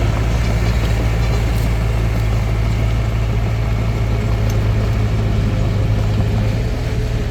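Hitachi DX45M bulldozer's diesel engine running steadily with a low, even drone.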